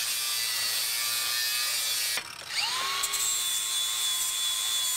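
Angle grinder grinding down small locator tabs on a cast-aluminium motorcycle footrest bracket, a steady grinding hiss. About two seconds in it stops briefly, then the grinder spins back up with a rising whine that settles to a steady pitch and grinds on.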